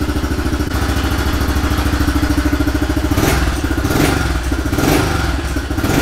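The air-cooled single-cylinder four-stroke engine of a brand-new Honda CRF110F pit bike idles steadily on its very first run. From about halfway through, the throttle is blipped several times in short revs.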